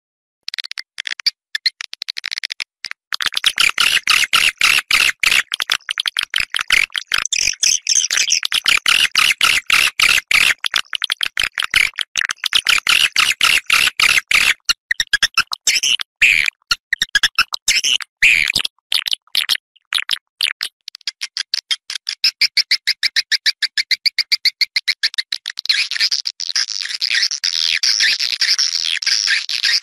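Edible-nest swiftlet calls played back as a lure recording: a fast, unbroken chatter of high chirps, several a second, with short silent gaps between them. It is a swiftlet-house outdoor call sound meant to attract swiftlets to nest.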